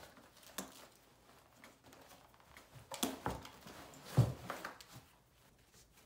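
Handling noise from a nylon load-carrying pack and a rifle being moved about: soft rustling and a few knocks, the loudest a dull thump a little after four seconds in.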